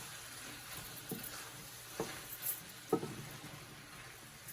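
Chopped onions and tomatoes sizzling in olive oil and butter in a pan as they are stirred, with three light knocks of the stirring utensil against the pan about a second apart.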